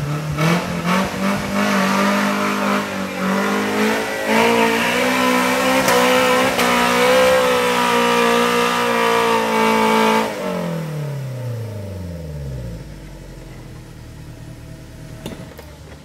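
Off-road 4x4 engine revving hard under load as the vehicle climbs a steep dirt slope, held high for about ten seconds; then the revs drop away and it settles to a lower, quieter idle.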